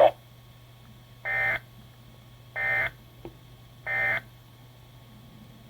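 Three short buzzy digital data bursts of a SAME (Specific Area Message Encoding) alert signal, each about a third of a second long and about 1.3 s apart. Bursts this short fit the end-of-message code that closes an emergency alert broadcast.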